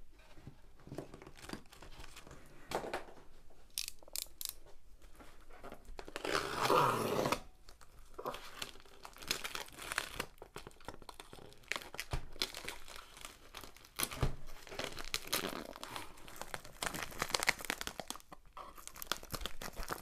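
Black plastic wrapping on a cardboard box being slit with a craft knife and peeled back, crinkling and tearing in irregular bursts, with a louder stretch of about a second some six seconds in.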